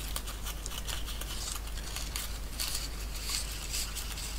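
Soft rustling and crinkling of a strip of paper tape being coiled up between the fingers, over a faint steady low hum.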